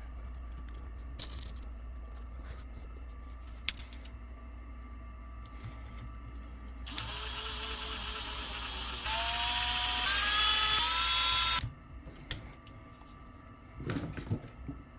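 A small cordless power driver runs for about five seconds, driving small screws into an RC crawler's aluminium beadlock wheel. Its whine steps up in pitch twice before it stops abruptly. A few light clicks of handling small parts come before it.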